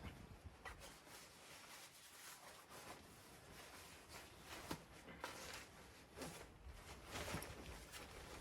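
Faint scattered clicks and light handling noise over a quiet steady hiss.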